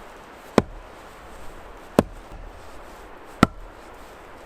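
Axe splitting a tough log of firewood: three sharp strikes about a second and a half apart. The axe head is planted in the log, and axe and log are smacked down together onto a chopping block.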